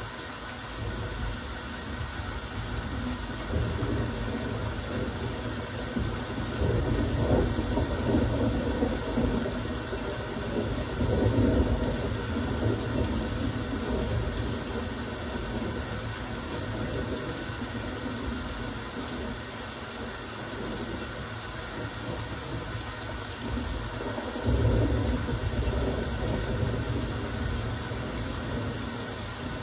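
Steady rain, a continuous hiss, with a few louder low swells that come and go, the strongest around the middle and near the end.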